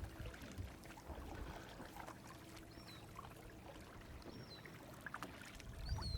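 Kayak paddle strokes with water dripping and trickling off the blade. A bird gives three short high chirps about a second and a half apart.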